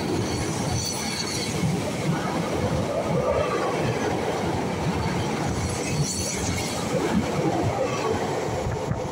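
Double-deck electric commuter train running close alongside the platform: a steady rumble of wheels on rail with scattered clicks from the rail joints.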